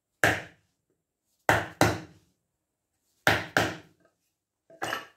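Hammer striking a flat metal bar laid across a new hub seal, tapping the seal into the back of a Land Rover front hub. Seven short sharp blows, one and then mostly in quick pairs about a second and a half apart, the last pair lighter as the seal seats home.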